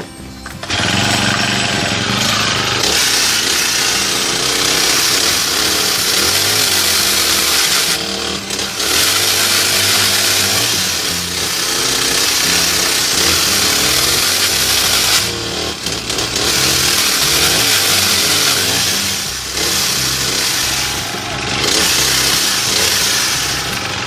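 Honda GX35 four-stroke engine driving a pole-saw chain at high revs, cutting through bamboo stems. The revs ease off briefly about four times, between cuts.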